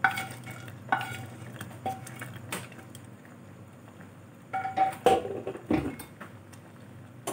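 Metal spoon and plate clinking and scraping against a stainless steel pot as fried paneer cubes are tipped into boiling vegetable soup: a few sharp, briefly ringing clinks in the first three seconds, then a cluster of clinks and scrapes about five seconds in. A low steady hum runs underneath.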